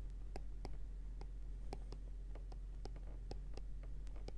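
Stylus tip tapping and dragging on a tablet's glass screen while handwriting: a string of small, irregularly spaced clicks, about a dozen in all.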